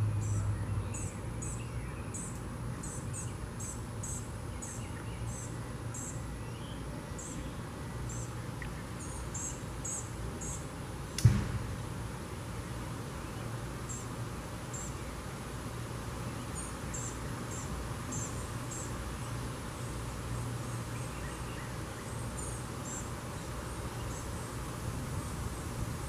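Outdoor ambience of scattered clusters of short, high-pitched chirps over a steady low rumble, with one sharp knock about eleven seconds in.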